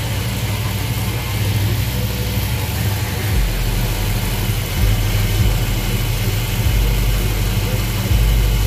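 A 350 V8 idling steadily while its valves are adjusted with the engine running, a rocker arm nut at a time. The low engine note shifts a few times.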